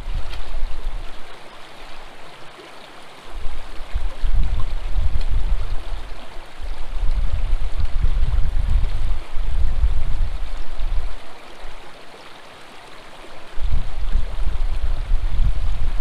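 Shallow rocky stream running steadily over stones. Heavy gusts of wind buffet the microphone with a loud low rumble that comes and goes several times and drowns out the water.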